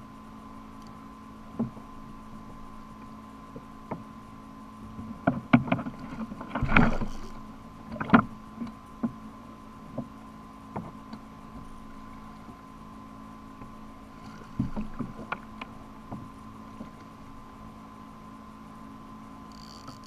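Scattered knocks and taps on a plastic fishing kayak's hull and gear, coming in two clusters, with a short splash-like rush in the first cluster, over a steady hum.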